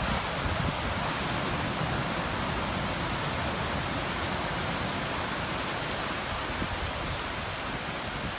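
Steady roar of typhoon-driven surf breaking along the beach, an even wash of white water with no single wave standing out, and light wind rumbling on the microphone.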